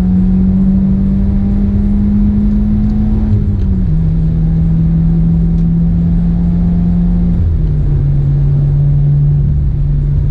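2020 Subaru WRX's turbocharged 2.0-litre flat-four accelerating hard, heard from inside the cabin. The engine note climbs slowly, then drops as the car upshifts about four seconds in, and drops again with another upshift about seven and a half seconds in.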